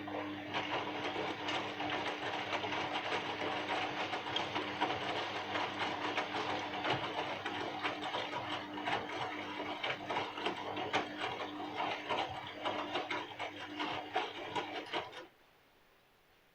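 Bosch washing machine running its drum during the rinse cycle: a steady motor hum under a dense, busy rattle of the tumbling load. It stops abruptly about fifteen seconds in, as the drum pauses between turns.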